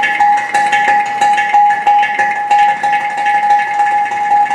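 Manamadurai ghatam, a clay pot drum, played fast with the hands and fingers in a solkattu pattern: a rapid run of strokes over the pot's steady ringing pitch.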